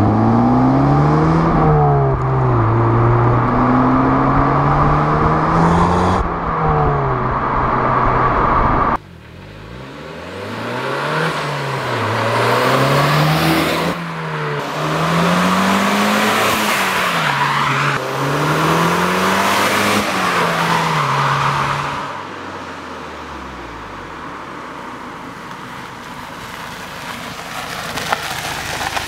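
Audi S1's turbocharged 2.0 TFSI four-cylinder engine pulling hard, its pitch climbing and dropping with each gear change. About nine seconds in the sound drops suddenly and then rises and falls about every two seconds through repeated pulls and shifts. Near the end it settles to a lower, steadier run.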